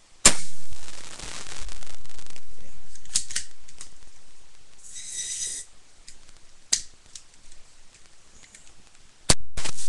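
A toy spring gun, its barrel sprayed with deodorant and lit at the muzzle, fires with a sharp pop that sets off a rushing whoosh of flame, fading over about three seconds. Scattered clicks and a short hiss follow, then a second pop and whoosh near the end.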